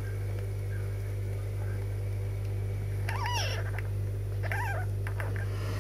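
Newborn Burmese kitten mewing twice, about three and four and a half seconds in, each a short squeaky call that rises and falls, over a steady low hum.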